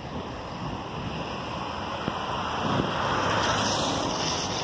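Steady hiss of falling rain with wind on the microphone, swelling into a louder rushing hiss about three seconds in.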